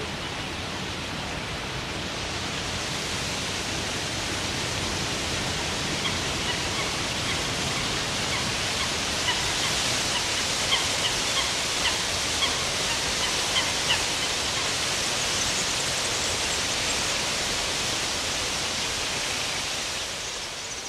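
A steady, even hiss across the wetland, swelling toward the middle. About halfway through, a quick run of short, sharp bird calls sounds over it.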